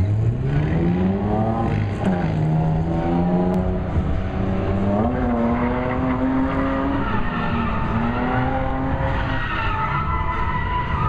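Car engine revving hard under full throttle, its pitch climbing over the first two seconds, dropping back about two seconds in, then climbing again about five seconds in, while the tires squeal and skid on asphalt as the car slides sideways.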